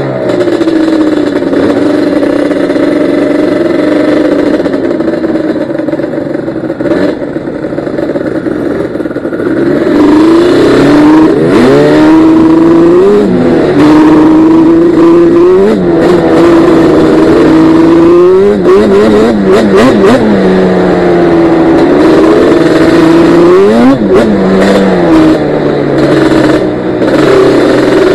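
Yamaha Banshee ATV's twin-cylinder two-stroke engine running under way on a dirt trail, heard from on board. It holds a fairly steady pitch for the first ten seconds or so, then revs up and drops back again and again as the throttle is worked.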